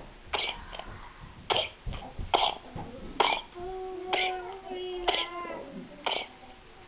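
Two-month-old baby with pertussis (whooping cough) in a coughing fit: seven short, harsh coughs about a second apart, with a held, wavering voiced sound from the baby between them midway.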